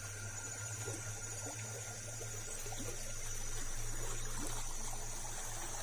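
Water trickling and splashing over a small weir in a stream, swelling a little midway, with a steady high insect trill and a low steady hum underneath.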